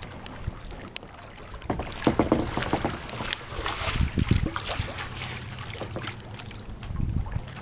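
Water splashing and lapping around a kayak as it is paddled, with irregular splashes from the paddle strokes and wind on the microphone.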